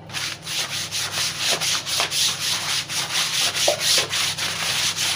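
Hand scrub brush scrubbing a wet plastic sheet in quick, rapid back-and-forth strokes.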